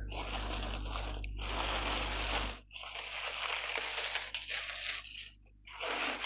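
Thin plastic packaging crinkling and rustling as a parcel bag is handled and opened, in several stretches with short breaks.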